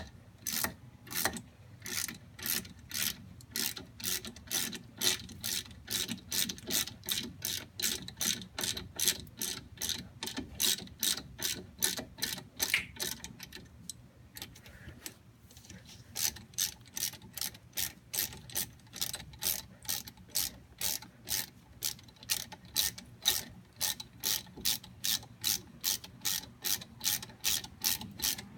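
Hand socket ratchet clicking as it works a disc brake caliper bolt in quick back-and-forth strokes, about two clicks a second, with a short pause about halfway through.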